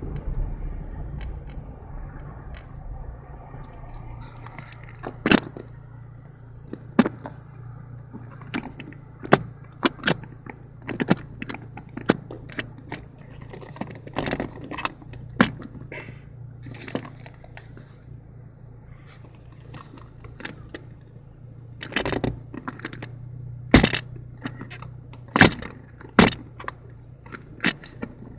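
Car engine's low steady hum heard from inside the cabin while creeping in slow traffic, with irregular sharp clicks and rattles from loose things in the car, the loudest about two thirds of the way in.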